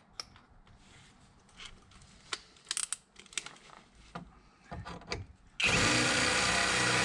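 A few light clicks and knocks of handling, then about five and a half seconds in an electric drill starts and runs steadily, boring an 8 mm hole into the door's sheet-metal inner panel to reach the window motor's screw.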